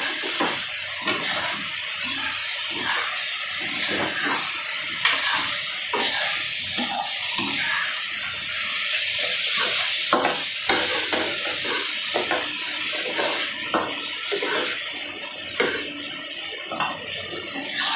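Pork belly and crushed tomatoes sizzling in a hot kawali (wok), with a steady hiss, while a spatula stirs them, scraping and knocking against the pan at irregular moments.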